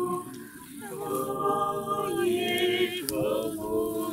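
A group of voices singing together in long held notes, with a short pause for breath about half a second in and a brief break near three seconds.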